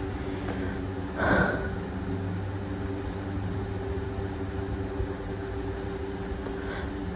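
A person takes a short, sharp breath about a second in, with a fainter breath near the end, over a steady low hum.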